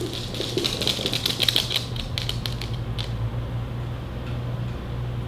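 A miniature dachshund's claws clicking on a hard floor as it walks: a rapid patter of light ticks that stops about three seconds in, over a steady low hum.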